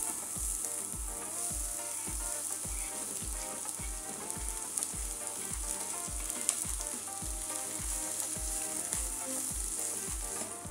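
Chopped onions sizzling steadily as they fry in hot oil in a frying pan.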